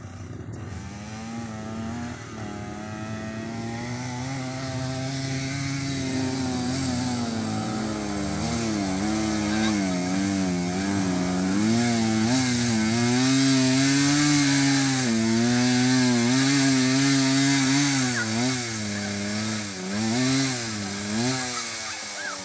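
Motorcycle engine climbing a steep dirt trail, its pitch rising and falling with the throttle and growing louder as it comes closer. Near the end it revs in several short blips.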